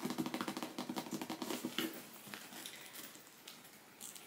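Close handling noises: rustling and light clicks and taps of items being picked up and moved, busier in the first two seconds and then fainter.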